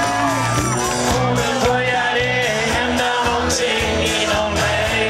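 A rock band playing live: a male lead singer over guitars, bass, keyboard and drums, heard from the audience at low recording quality.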